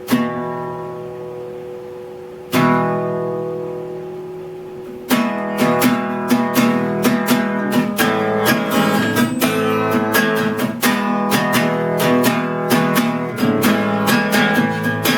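Acoustic guitar: one chord struck and left to ring, a second about two and a half seconds in, then quick, steady rhythmic strumming from about five seconds in.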